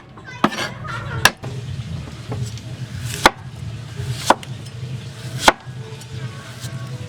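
Knife chopping food on a cutting board: about five sharp, separate strikes at uneven intervals.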